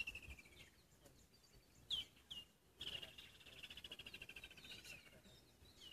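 Birds calling: a rapid rattling trill lasting about two seconds in the middle, and a few short, sharp downslurred notes before and after it.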